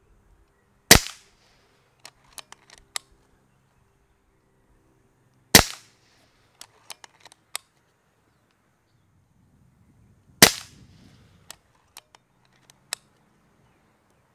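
Kral Puncher Breaker .22 PCP air rifle firing three shots about five seconds apart, each a sharp crack with a short ring. Between shots come several small clicks as the action is cycled to chamber the next pellet.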